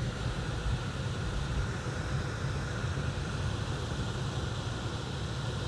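Blower motor in a gas HVAC unit spinning a newly installed blower wheel: a steady low hum with a rush of moving air, meaning the fan is running and pulling air again.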